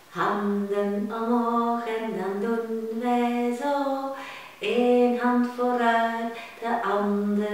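A woman singing unaccompanied, holding long steady notes in a short sung phrase.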